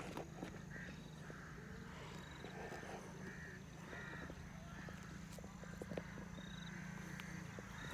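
Faint birds calling, with short calls repeating every half second or so and a few tiny high chirps, over a low steady hum.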